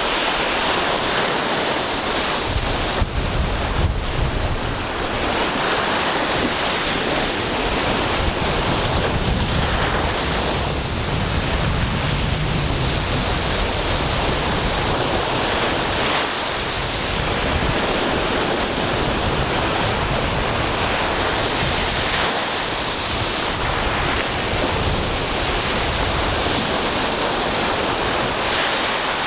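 Ocean surf: waves breaking and washing on the shore in a steady rush, with gusts of wind rumbling on the microphone.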